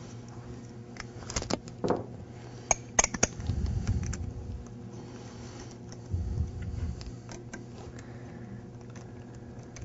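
Small metallic clicks and taps of a hex key turning bolts into a hydraulic directional valve on a waterjet intensifier manifold, as the bolts are run in by hand before torquing. A handful of sharp clicks about three seconds in, with a few dull handling bumps.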